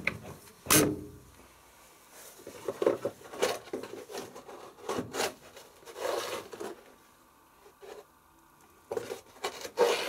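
A front-loading washing machine's door pressed shut with a single knock just under a second in, followed by scattered short rubbing and scraping handling noises.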